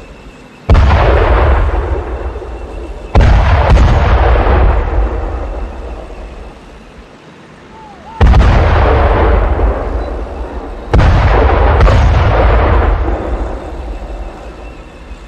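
Artillery fire: four heavy booms in two pairs, each a sudden blast that rolls away in a long fading rumble.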